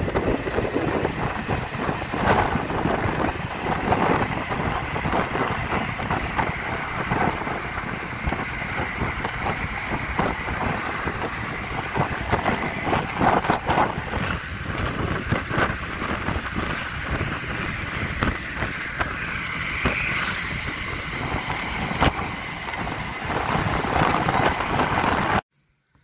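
Road and wind noise inside a moving car, with wind buffeting the microphone. It cuts off suddenly near the end.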